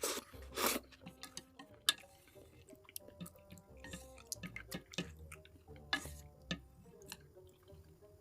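Close-miked eating: wet chewing and mouth sounds with many small clicks, and louder slurps near the start and about six seconds in. Faint background music underneath.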